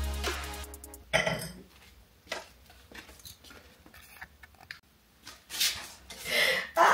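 Background music ends about a second in. Scattered light clinks and knocks follow as objects are handled, and near the end a plastic mailer bag is picked up and rustles.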